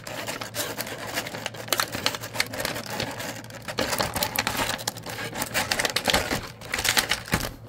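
Plastic blister packaging of an action figure rattling, clicking and crinkling as the figure is worked loose from its tray and ties, a dense run of irregular clicks and crackles.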